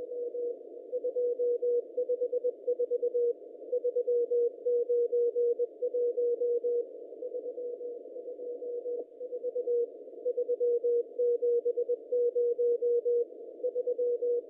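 Morse code telemetry from the AO-7 amateur radio satellite's Mode A beacon, heard as a steady single tone keyed on and off in dots and dashes over a narrow band of receiver hiss. The signal fades for a couple of seconds in the middle, then comes back strong.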